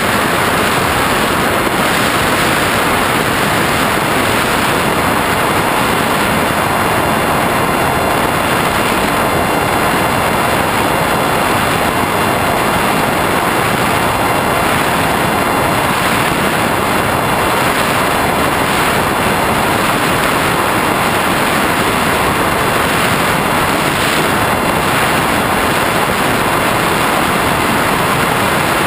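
Steady in-flight noise from a flying-wing RC plane carrying the camera: wind rushing over the airframe and microphone, mixed with a faint continuous whine from the propeller motor.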